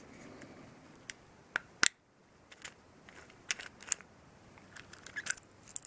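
Light, irregular clicks and taps of a watch band being handled in a link remover tool, the loudest a quick double click just under two seconds in.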